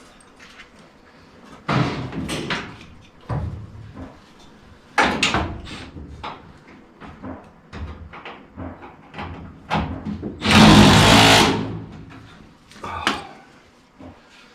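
Irregular clanks and knocks of tools and sheet-metal furnace parts being handled, with a louder noisy burst lasting about a second and a half about two-thirds of the way through.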